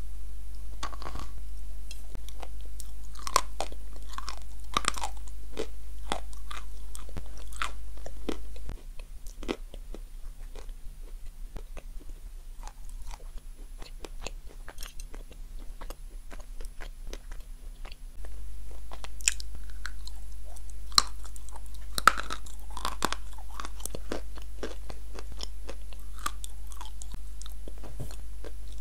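Close-miked eating of a crunchy cream-dipped dessert: bites, crisp crackling crunches and chewing, busiest near the start and again in the second half. Under it runs a steady low hum that drops out for about ten seconds in the middle.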